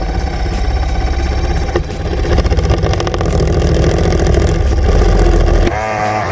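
Power drill boring a hole through the plastic wall of a cistern from inside the tank, running loud and steady. Near the end its pitch wavers, then it cuts off abruptly.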